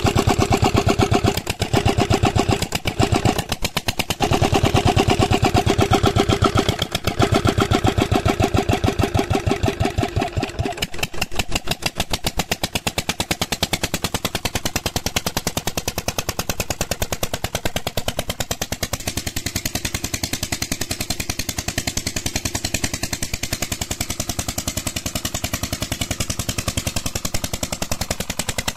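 Old stationary diesel engine running with a fast, even exhaust beat. It is louder and broken by a few short gaps during the first ten seconds or so, then settles steadier and quieter.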